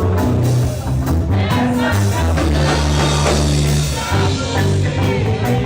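Band playing a rock-style worship song, with bass, drums and a singing voice.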